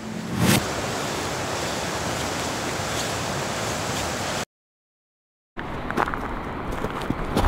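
Steady rushing outdoor noise with a brief louder swell about half a second in, cut off abruptly by about a second of dead silence; after it a rougher rushing noise with scattered clicks.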